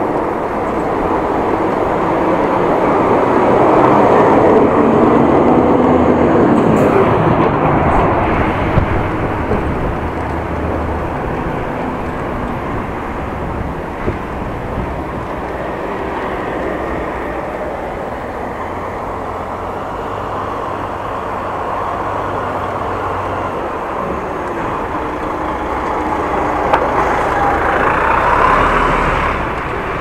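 Road traffic and wind rush on a bicycle-mounted action camera while riding. The noise swells twice, as motor vehicles pass, the second time near the end.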